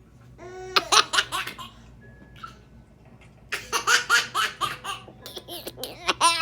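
Baby laughing hysterically in two bouts: a short one about half a second in, then after a pause a longer run of quick laughs from about halfway on.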